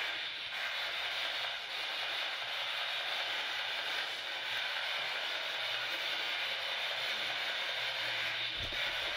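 Steady hiss of static with a faint low hum underneath, and a brief low thump near the end.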